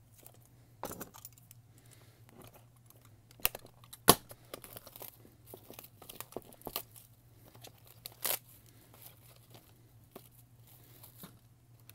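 Plastic shrink wrap being torn and peeled off a small cardboard box, with irregular crinkling and sharp crackles; the loudest snap comes about four seconds in and another burst of crackling about eight seconds in.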